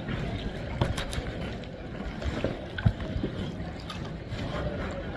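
Kayak paddling: the paddle dips and splashes in calm water with scattered drips and a few small sharp knocks.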